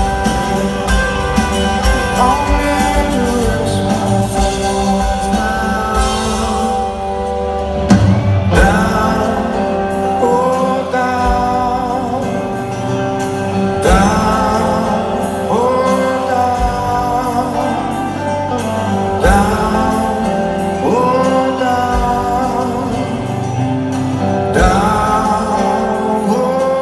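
Rock band playing live in a large arena: electric guitars, bass guitar and drums under a male lead vocal, whose sung lines enter about 8 seconds in and return every few seconds.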